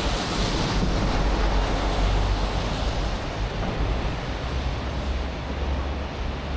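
Steady city street noise in a snowstorm: a low traffic rumble with wind buffeting the microphone, the rumble heaviest in the second half.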